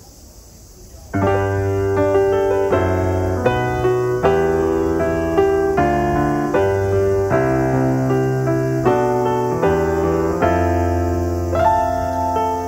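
Background piano music that comes in suddenly about a second in, with chords changing every half second or so.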